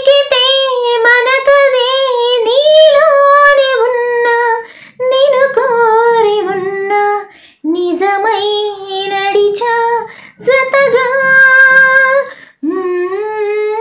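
A woman singing a Telugu film song unaccompanied, in long held phrases that glide in pitch, broken by short pauses for breath.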